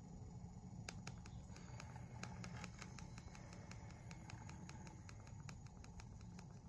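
Near silence: a low hum with a run of faint, irregular clicks starting about a second in.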